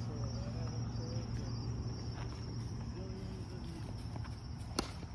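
Insects droning steadily at a high pitch, over a low steady hum and faint distant voices, with one sharp click near the end.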